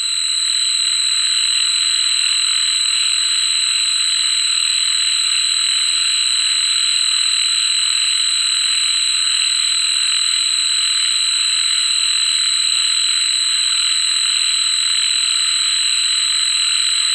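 Cicadas calling in a continuous chorus: a steady high-pitched whine over a dense hiss.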